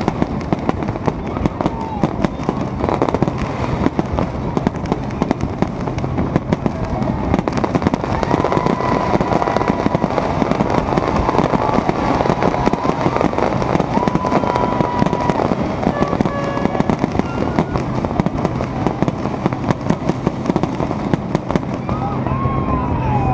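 Fireworks display going off: a dense, unbroken run of bangs and crackling reports, many per second.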